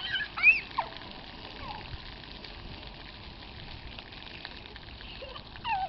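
Steady hiss of splash-pad water jets spraying and pattering onto wet concrete. A child's high-pitched squeals come in the first second and again near the end.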